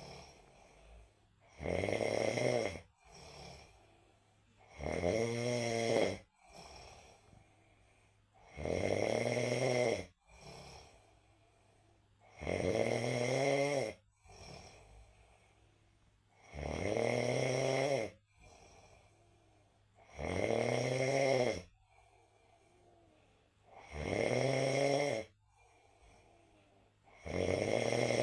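A person snoring loudly and rhythmically, with a pitched, drawn-out snore about every four seconds and softer breaths between.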